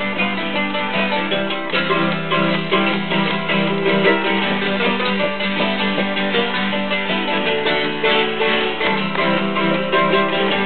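Mandolin and acoustic guitar playing an instrumental mountain-music tune together, with quick picked notes over the guitar's chords.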